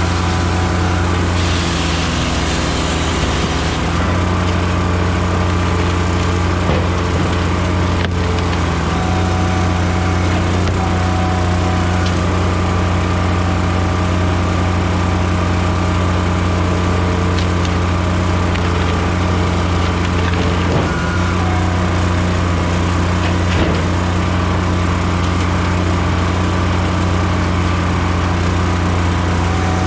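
Blockbuster firewood processor running steadily under load, its engine drone unbroken while it saws and splits softwood. A brief rasping hiss about two seconds in as the saw bar cuts through a log, and a single knock about eight seconds in.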